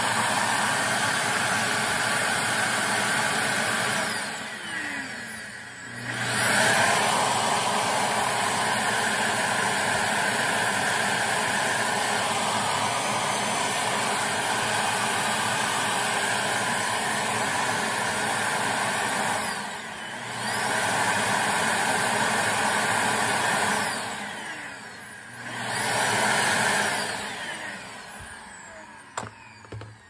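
Electrolux ErgoSpace ZE310M vacuum cleaner motor running out of its shell. It slows and speeds back up three times, then winds down near the end with a couple of clicks.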